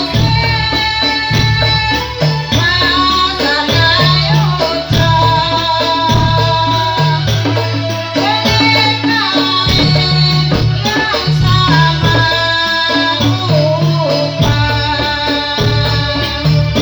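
Javanese dolalak dance music: a sung melody over frame drums and a jingling rattle, keeping a steady beat.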